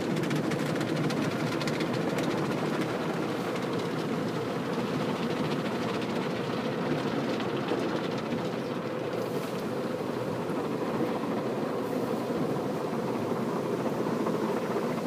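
Automatic car wash machinery heard from inside the car: a steady low noise of water spray and the cloth brushes sweeping over the car's body and windshield.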